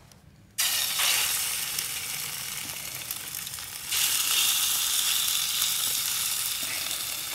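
Raw chicken pieces going into hot oil in a small camping frying pan, starting to sizzle suddenly just over half a second in and sizzling steadily, louder again at about four seconds as more chicken goes in.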